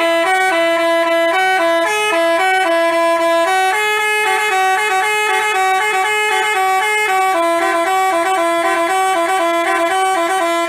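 Basuri-type telolet bus horn playing a tune: a series of stepping, horn-like notes, loud and continuous, that stops abruptly at the end.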